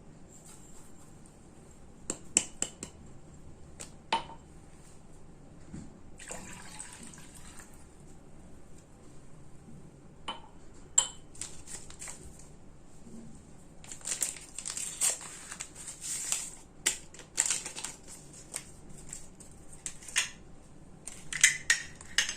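Liquids being poured into a saucepan, with scattered clinks and knocks of utensils and containers against the pan.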